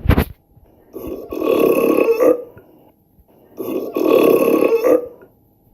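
A woman burping loudly, two long burps of about a second and a half each, a short pause between them, after a brief thump at the very start.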